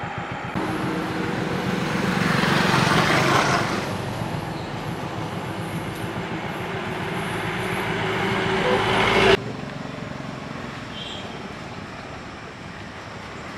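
Road traffic: lorry and bus engines running close by, swelling loudest about two to three seconds in. Then a sudden cut about nine seconds in to quieter engine and traffic noise.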